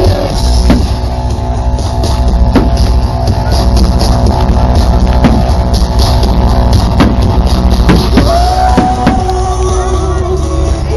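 Loud rock music with drum kit and guitar, with a few sharp bangs scattered through it.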